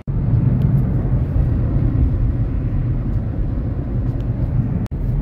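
Car running: a loud, steady low rumble with no distinct rhythm, starting abruptly and briefly dropping out near the end.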